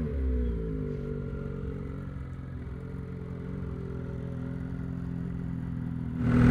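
Lynx 850 E-TEC Turbo R two-stroke snowmobile engine coming down off a rev, its pitch dropping in the first second, then idling steadily. It gets louder abruptly just before the end.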